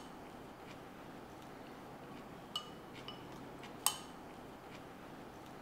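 Chopsticks clinking against ceramic rice bowls during a meal: three light clinks with a short ring in the second half, the last the loudest, over quiet room tone.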